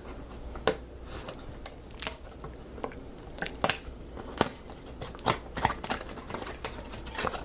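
Irregular light clicks and snaps of small laser-cut plywood parts being handled, pressed out and fitted together on a work surface.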